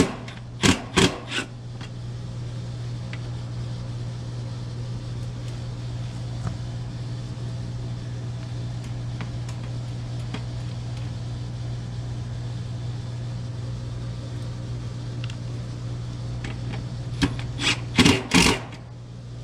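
Steady low hum, with sharp knocks and clatter of hands and tools working on an air-conditioning condensing unit: a few right at the start and a quick cluster near the end.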